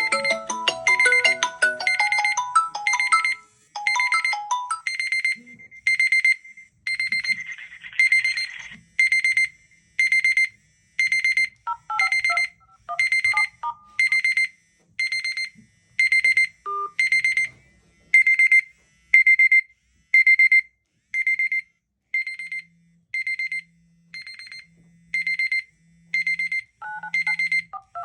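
A marimba-like phone ringtone melody ends about five seconds in. It gives way to a smartphone alarm clock's repeated high electronic beep, a short beep about every three-quarters of a second. Brief snatches of a lower melody come through twice, and near the end a low buzz pulses in time with the beeps.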